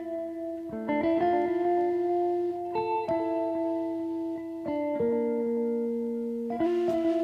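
Background music: a guitar playing sustained chords, a new chord struck every second or two.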